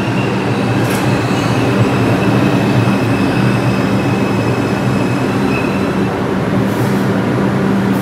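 R142 New York City Subway train standing at the platform, its onboard equipment running with a loud, steady low hum. A faint high whine stops about six seconds in.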